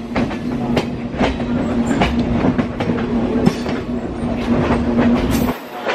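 Train wheels clicking over rail joints about twice a second over a steady running rumble and hum, heard from the open door of a moving local train as a train of coaches passes on the next track. The low rumble and hum drop out suddenly near the end.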